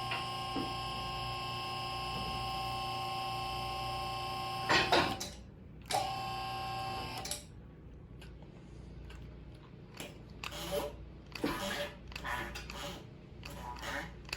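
QuickJack electric-hydraulic car lift's pump motor running with a steady whine. It stops about five seconds in with a loud clunk, runs again for about a second, then gives way to scattered clanks and knocks as the lift sets on its safety locks.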